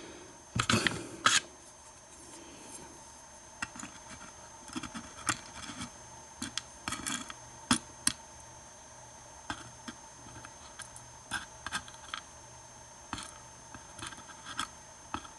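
Small sharp metal clicks and light scraping from the pins and tools of a disassembled American 1100 padlock as its driver pins are worked out of the pin chambers. A louder cluster of clicks comes about a second in, then scattered single clicks.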